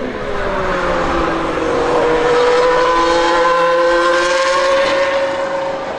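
Mercedes-AMG Formula 1 car's turbocharged V6 hybrid engine at high revs as the car drives by. Its note climbs over the first second, then holds steady and loud before easing slightly near the end.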